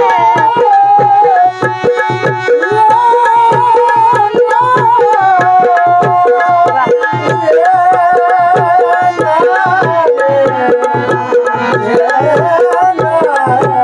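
Dholki drum playing a steady, even beat of deep strokes, about two or three a second, under a sliding melody line with no words.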